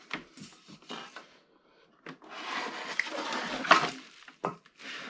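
Polystyrene foam packaging squeaking and scraping as a toy RC buggy is pulled out of its moulded foam insert: a short stretch of rubbing, a pause, a click about two seconds in, then a longer stretch of squeaky scraping.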